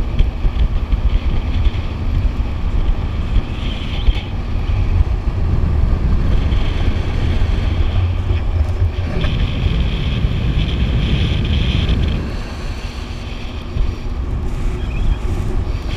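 Wind rumbling on the microphone of a GoPro mounted outside a moving pickup truck, with the truck's road noise underneath.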